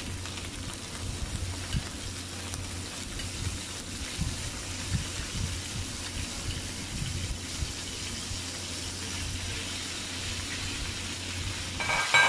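Tanigue (Spanish mackerel) steaks frying in hot vegetable oil in a nonstick pan: a steady sizzle with scattered small pops as more steaks are laid in. A short ringing clink near the end.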